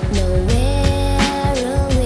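Background music: a soul/R&B-style song with a held sung melody over bass and drums.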